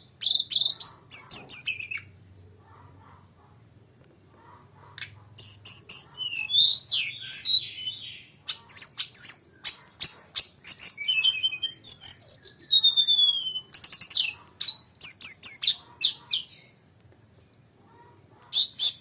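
A tledekan gunung songbird singing in long rolling runs of fast, high whistles, trills and falling slurred notes, with a pause of about three seconds near the start and another short break near the end.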